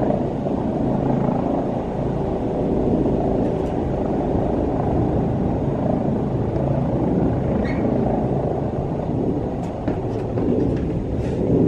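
Helicopter coming in to land, its rotors and engine making a steady, loud rumble.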